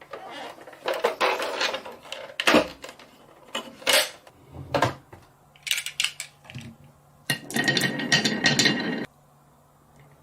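Marbles clicking and clacking against a plastic toy marble-run track, with a denser rolling clatter for over a second near the end. A faint steady low hum runs under the second half.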